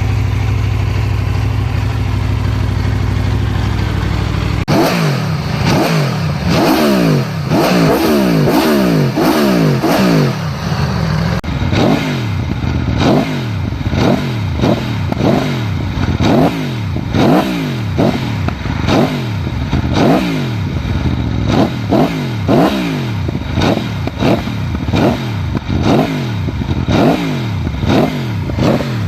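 Aprilia Tuono V4 motorcycle engine idling steadily, then, about five seconds in, revved over and over with quick throttle blips, the engine speed rising and falling about once a second.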